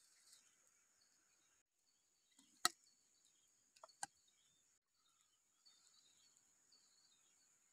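Three sharp knocks of eggs dropping into a bamboo cooking tube: a loud one about two and a half seconds in, then two close together about a second later. Beneath them is a faint steady high insect buzz.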